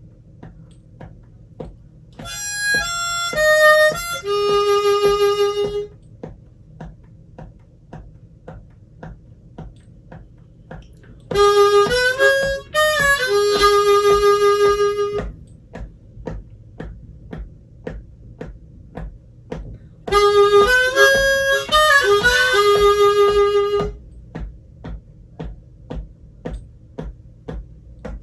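Diatonic harmonica playing three short blues phrases with pauses between them, each phrase ending on a long held low note. Under it runs a steady ticking beat of about two clicks a second.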